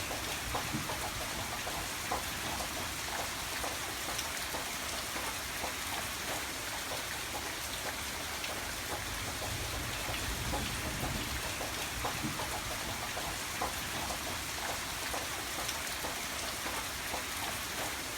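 Steady gentle rainfall, with many individual drops ticking on a surface.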